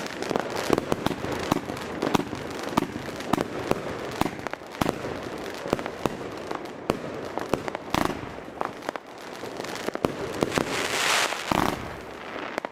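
A 51-shot, 30 mm Riakeo Peking Opera 1 firework compound cake firing: a quick stream of shot launches and shell bursts with dense crackling between them. A louder rushing hiss swells near the end.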